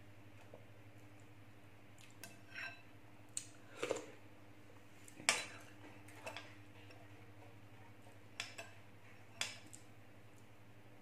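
Metal spoon clinking against a glass bowl, about nine short irregular clinks, the sharpest a little after five seconds in.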